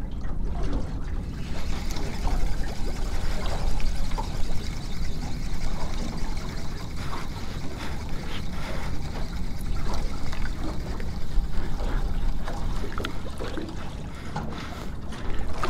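Water lapping and sloshing against the aluminium hull of a small drifting tinny, with a low rumble underneath and a few light ticks scattered through.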